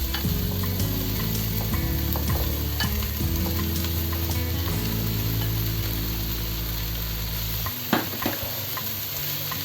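Beef frying in hot oil with onion and garlic in a cooking pot, sizzling steadily, with occasional clicks of a utensil against the pot and a sharper knock about eight seconds in.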